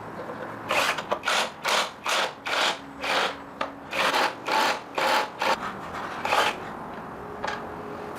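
Repeated rasping strokes of a hand tool rubbed back and forth over a part, about two or three a second, stopping near the end.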